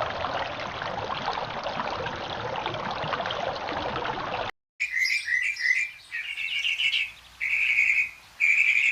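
Birds calling: first a dense, continuous chatter, then, after a brief cut, a series of repeated chirping calls, several of them drawn out for about half a second.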